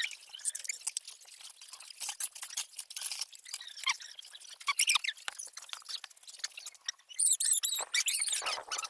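High-pitched chirps, squeaks and scattered clicks, busiest and loudest about seven seconds in.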